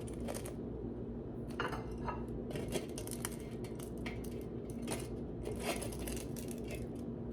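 Thin oven-baked breaded chicken breasts crunching as they are handled with utensils, with clinks against the pan or plate: a string of short, crisp crackles over a steady low hum.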